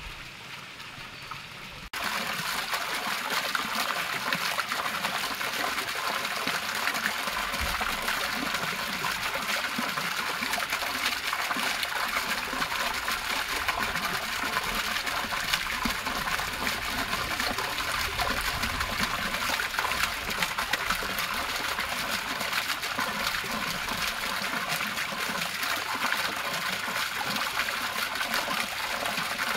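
Small fountain bubbler jets burble quietly for about two seconds; then the sound changes suddenly to the loud, steady splashing of a single vertical fountain jet falling back into a small stone basin of water.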